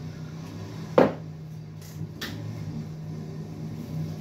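A sharp knock about a second in, then a fainter one about a second later, over a steady low hum.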